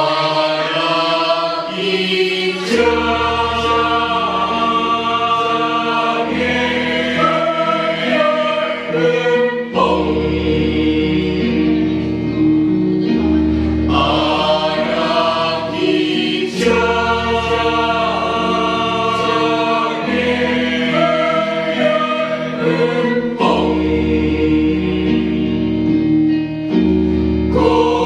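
A mixed choir of teenage boys and girls singing a Janger song together. Low held bass notes sit underneath and change every few seconds.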